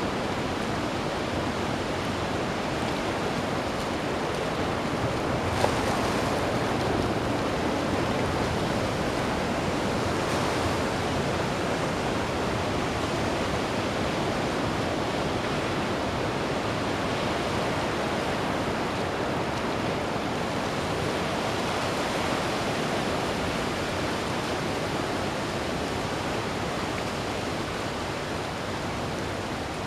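Ocean surf breaking and washing onto a beach, a steady rush of noise that swells as waves come in about six and ten seconds in. A brief click sounds about six seconds in.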